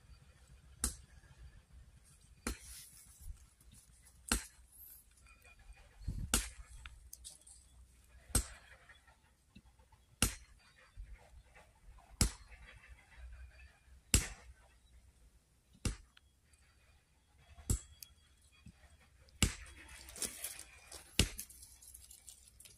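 A dozen sharp knocks, evenly spaced about two seconds apart.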